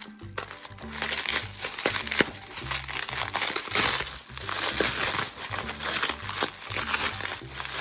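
Plastic packaging crinkling and rustling as a bag of gemstones is opened and handled, over light background music.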